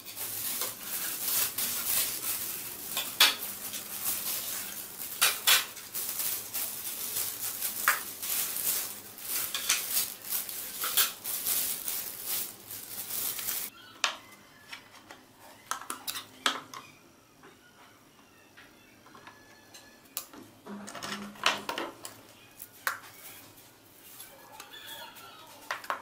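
A spoon and hands mixing a shredded salad in a plastic bowl: dense rustling and scraping with many small clicks for about the first half, then scattered clinks of the spoon against the bowl and dishes.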